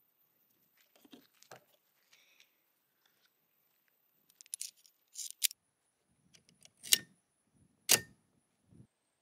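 Metallic clicks, light rattles and sharp clacks of a Tokarev pistol's steel parts being handled. The sounds are scattered, and the loudest are single clacks about a second apart in the second half.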